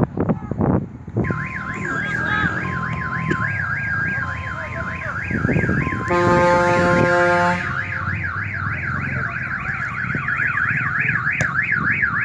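Car alarm siren sounding in fast up-and-down sweeps, starting about a second in, with a louder, lower horn-like blare lasting about a second and a half midway.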